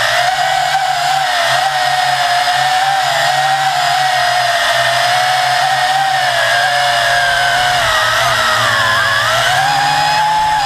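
WLtoys V262 quadcopter's motors and propellers whining steadily, heard close up from the camera mounted on the craft. The pitch wavers with throttle, dips about eight seconds in, then rises near the end.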